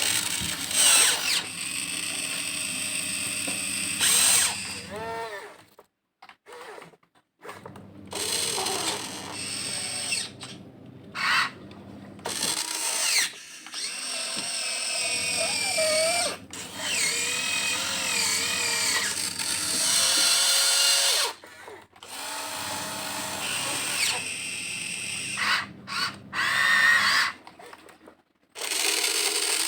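Huina 1592 RC excavator's electric motors whining in runs of a few seconds while it digs, stopping briefly several times. The pitch wavers as the load changes.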